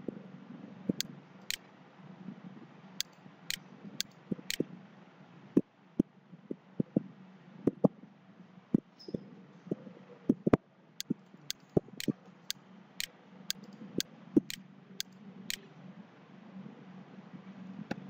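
Computer mouse clicking irregularly, a couple of dozen short sharp clicks, with a few heavier, duller knocks in the middle, over a faint steady low hum.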